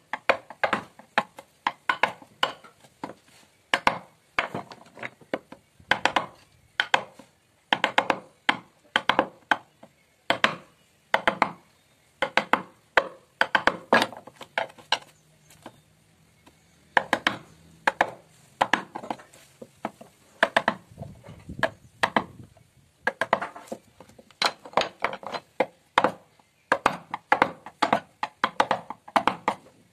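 Wooden mallet striking a carving chisel as it cuts into a wooden panel: quick, irregular knocks, about two to three a second, with a short pause about halfway through.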